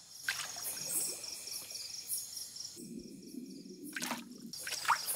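Water trickling and dripping as an archerfish spits a jet of water up out of the surface, with a short sharp splash about four seconds in. Crickets chirp steadily in the background.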